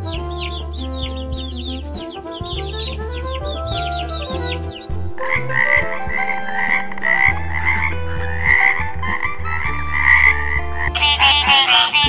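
Baby chicks peeping in rapid, high, falling chirps for about five seconds, then frogs croaking in repeated calls. Background music plays underneath.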